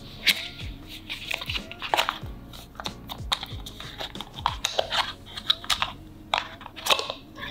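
Card packaging crinkling and a charging cable being handled as it is unwound from its cardboard holder: irregular small crackles and taps.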